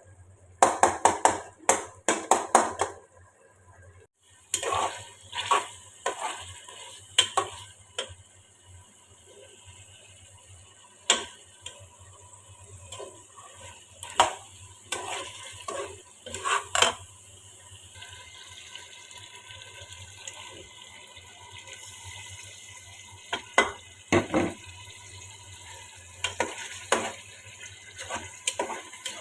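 A metal utensil clinking, knocking and scraping against a cooking pot, with a quick run of strikes near the start. Past the middle a steady hiss joins in under the clinks.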